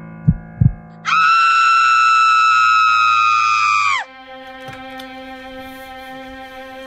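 A woman's long, high scream, starting about a second in and lasting about three seconds, dropping in pitch as it cuts off. Two low thuds come just before it, and sustained background music notes follow it.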